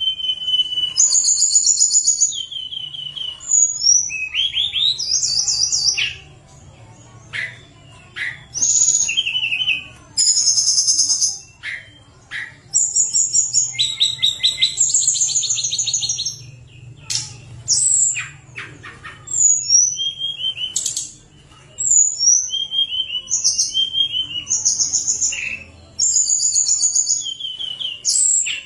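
Caged tledekan gunung singing loudly in repeated phrases of high, flute-like whistled notes and fast trills, with short pauses between phrases.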